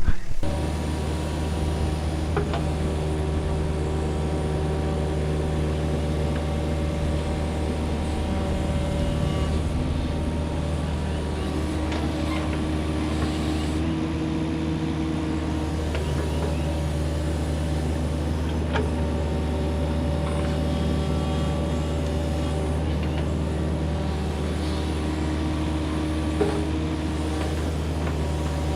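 Diesel engine of a compact construction machine running steadily, with a few light knocks now and then.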